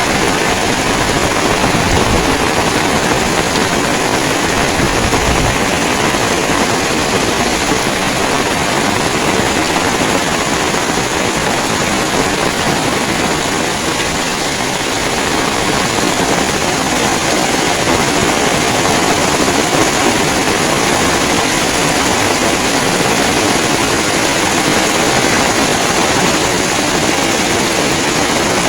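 Heavy rain falling steadily, with strong wind buffeting the microphone.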